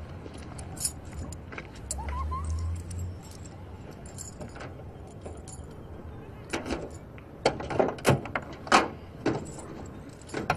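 A series of sharp clicks and knocks, clustered between about six and nine seconds in, over a low steady background, with a brief low rumble about two seconds in.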